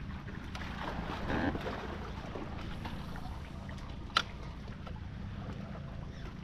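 Fishing kayak on the water with a steady low rumble and a light wash of water or wind. One sharp click about four seconds in.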